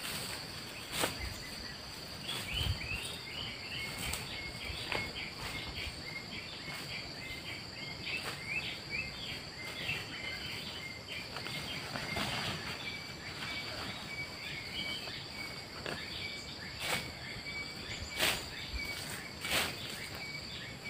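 Insects droning steadily at a high pitch, with a long run of quick high chirps. Scattered soft rustles come every few seconds from footsteps and movement in dry grass.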